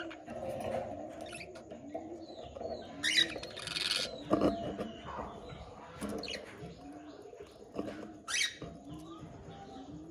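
Budgerigars chirping and warbling in short, irregular bursts of high gliding notes, with a low arching note repeating underneath.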